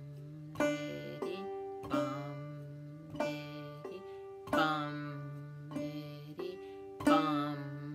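Five-string banjo in open G tuning played clawhammer style, slowly demonstrating the basic bum-ditty rhythm. Struck single notes alternate with brushed strums and the thumbed fifth string, giving about five strong strikes with lighter notes between, each left to ring.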